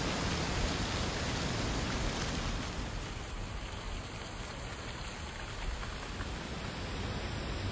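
Steady outdoor hiss of wind and rain in autumn woods, with gusty wind rumble on the microphone. It eases a little about three seconds in.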